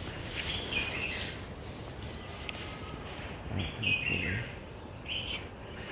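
Birds chirping in three short bouts of calls over steady outdoor background noise, with a single sharp click about two and a half seconds in.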